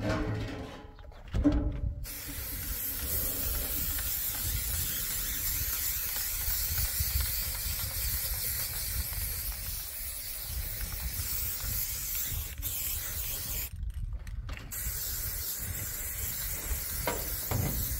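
Aerosol spray-paint can hissing in long continuous sprays, starting about two seconds in, with a short break about three-quarters of the way through before it sprays again.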